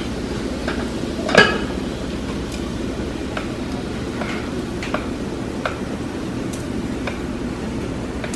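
Rubber spatula scraping thick cake batter out of a glass mixing bowl, with a few light clicks against the glass and one louder, brief scrape about a second and a half in, over steady background noise.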